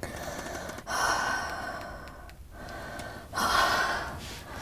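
A young woman breathing hard, two long audible breaths in a row, from the excitement of a fresh kill.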